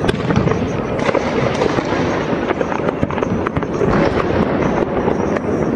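Fireworks and firecrackers going off without pause, a dense crackle of many overlapping bangs and pops.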